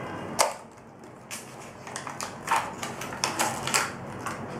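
A small product box being opened and its packaging handled on a desk: a string of uneven short clicks, taps and scrapes of cardboard and plastic.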